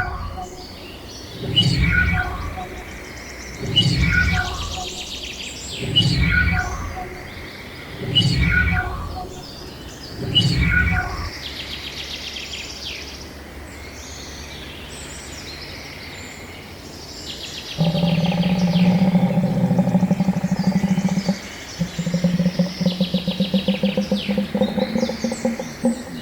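Birds calling: a low call repeated about every two seconds for the first ten seconds over steady high chirping of small birds, then a loud, rapid, buzzy pulsed call starting about eighteen seconds in.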